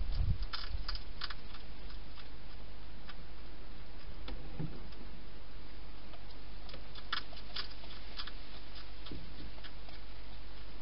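Hedgehog chewing food at a dish: two runs of sharp little clicks, one about half a second in and another about seven seconds in, with odd single clicks between, over a steady low hum.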